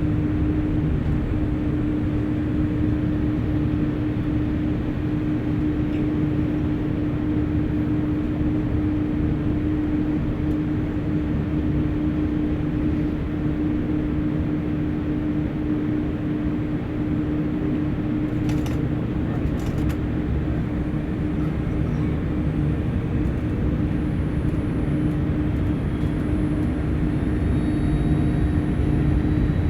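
Steady drone inside a parked Boeing 787-8's cabin, with the aircraft's air and electrical systems running. A constant low hum sits over a rumble, with two faint clicks about two-thirds of the way in.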